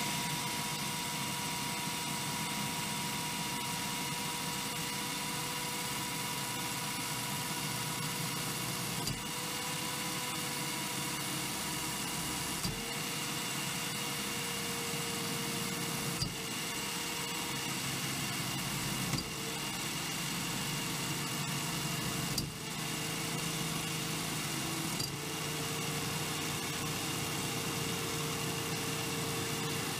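Greenpower car's electric motor running its belt and gear drive on the bench, a bit noisy: a steady whine over mechanical rattle, the whine shifting in pitch with a small click every few seconds.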